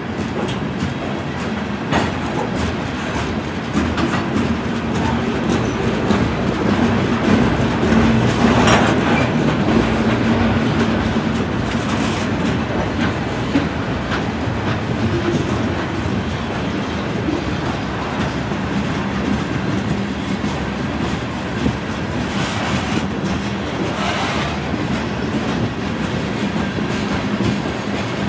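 Freight train of covered hopper cars rolling past, a steady rumble of steel wheels on rail with repeated clicks as the wheels cross rail joints.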